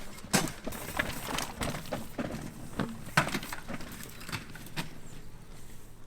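Mountain bikes clattering over rocks: irregular knocks and rattles of tyres, wheels and frames, with the two sharpest hits about a third of a second in and just after three seconds.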